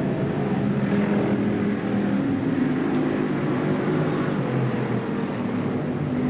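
Several stock car engines running at racing speed around an oval track, their tones rising and falling as the cars pass.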